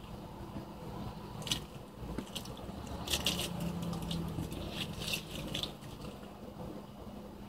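Close-up chewing and mouth smacking on a Milky Way chocolate bar being eaten fast, with clusters of wet clicks about a second and a half in, around three seconds and around five seconds.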